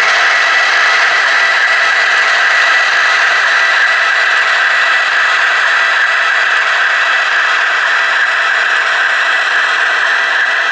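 H0-scale model diesel locomotives running on the layout: a steady whir of the electric motors and gears with the rattle of the wheels on the track.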